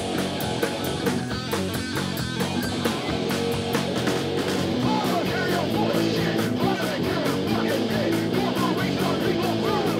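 Live rock band playing through amplifiers: distorted electric guitars, bass guitar and a drum kit with a steady cymbal beat.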